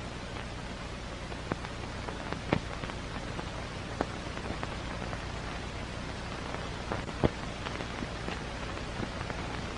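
Old optical film soundtrack noise: a steady hiss with a low hum under it and irregular crackles and pops, two of them sharper about two and a half and seven seconds in.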